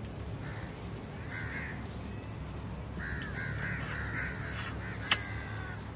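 Crows cawing repeatedly, a short call about a second and a half in and a longer run of harsh calls from about three seconds in. A sharp metallic click, the loudest sound, comes about five seconds in as aluminium tent-pole sections are fitted together.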